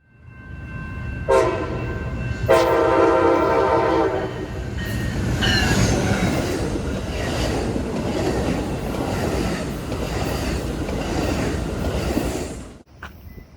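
Locomotive air horn sounding a short blast and then a longer one, followed by the steady rumble and rail clatter of a train passing close by, with a brief wheel squeal. The sound cuts off abruptly near the end.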